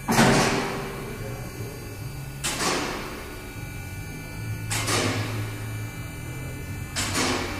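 Workshop noise: a sudden hissing whoosh about every two seconds, each fading quickly, over a steady low hum.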